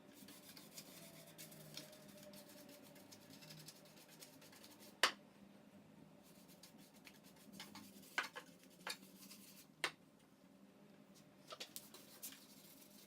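Faint workshop handling sounds: light rubbing and scraping, with scattered sharp clicks and knocks, the loudest about five seconds in and a quick cluster near the end.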